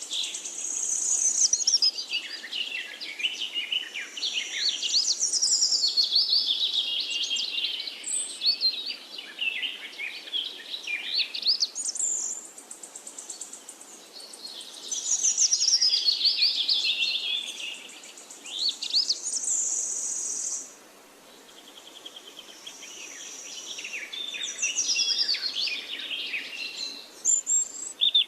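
Songbirds singing: long runs of quick, sweeping chirps and trills, phrase after phrase with short pauses between them.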